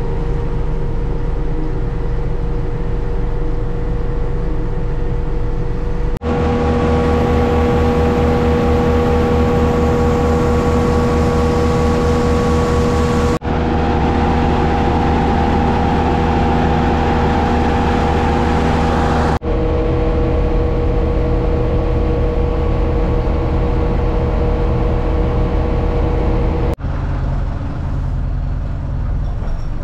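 Grain mill grinding moist corn into meal, a loud steady machine drone with a constant whine. It breaks off sharply and picks up again about every six to seven seconds.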